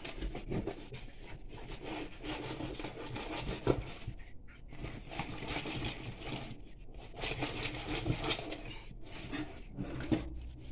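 A hedgehog fish (porcupinefish) being cut and skinned by hand with a knife in a stainless steel sink: irregular wet scraping, rustling and handling noises with a few small clicks.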